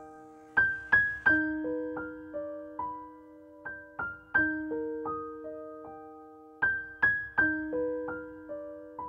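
Background music: a gentle electric piano melody, with single notes struck and left to ring in a short repeating phrase.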